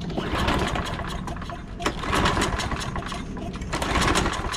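Recoil pull-starter on a Toro Recycler 22 push mower's Briggs & Stratton Quantum engine, yanked three times. The engine spins over with rapid clattering but does not fire.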